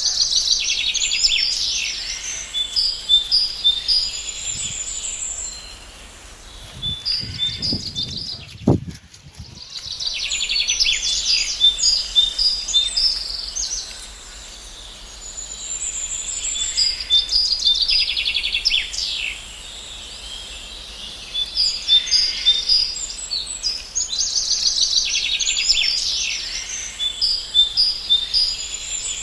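Small birds chirping and trilling in busy bouts of a few seconds, with quieter stretches between them and a brief drop-out about nine seconds in.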